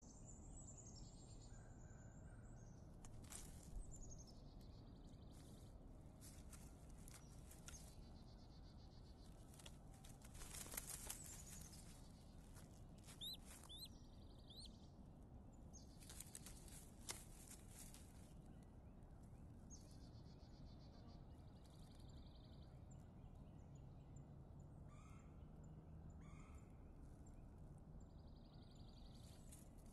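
Quiet woodland ambience: faint songbirds chirping and trilling at intervals, with a few brief soft clicks and rustles, a small cluster of them near the middle.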